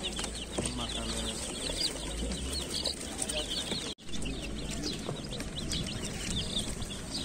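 A crowd of baby chickens peeping all at once: a dense, overlapping chorus of short high cheeps. The sound drops out for an instant about four seconds in.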